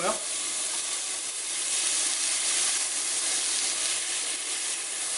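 Vegetables sizzling steadily in a hot stainless steel sauté pan as they are stirred with a silicone spatula.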